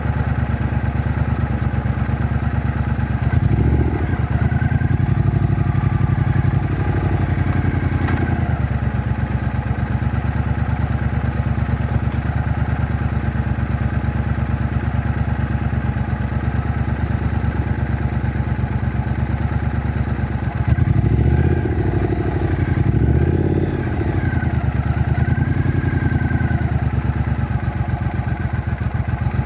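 Triumph Bonneville T120's 1200 cc parallel-twin engine running at low revs with a steady exhaust beat. The revs swell briefly a few seconds in and again several times about two-thirds of the way through.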